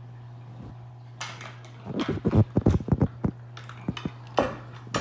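Plastic clips and frame parts of a baby bouncer clicking and knocking as the mechanism is unclipped and pulled apart by hand. A rapid cluster of clicks comes about a second in, then a few scattered clicks, over a steady faint low hum.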